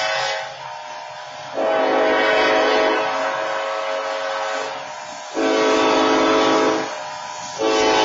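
BNSF locomotive air horn blowing the long-long-short-long grade-crossing signal. One long blast ends just after the start, a second long blast follows, then a short one, and the final long blast begins near the end.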